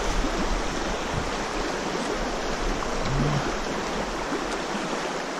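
Steady rush of a shallow, fast-flowing river running over a stony riffle.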